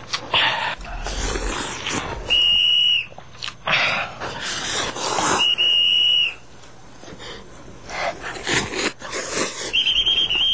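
Ramen noodles being slurped loudly in several long sucks, one after another. Three times a short, high, steady whistle-like tone sounds for under a second, louder than the slurping.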